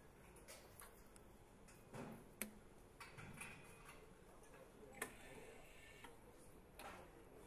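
Near-silent room tone with sparse faint clicks and light knocks from hand assembly work on an engine, two sharper clicks standing out, one about a third of the way in and one about two thirds of the way in.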